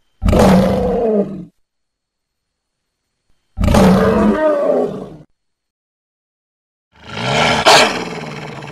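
Three separate creature roar sound effects, each lasting a second or two, with dead silence between them; the last swells, peaks sharply and trails off past the end.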